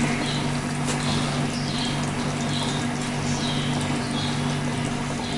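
Steady hiss of curry simmering in a frying pan on a gas burner, over a low steady hum, with faint high chirps coming back about once a second.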